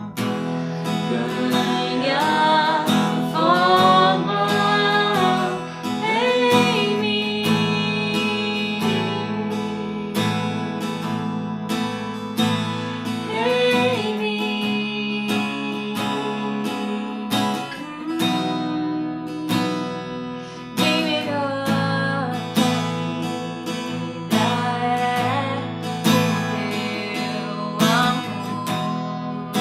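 Acoustic guitar strummed under a singer's voice: a gospel worship song played as an acoustic cover.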